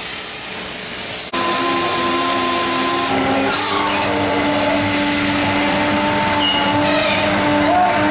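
Heavy drill reaming rivet holes in a ship's steel hull plate, running steadily with a held whine that shifts down slightly a couple of seconds after it starts. It is preceded by a steady hiss that cuts off about a second in.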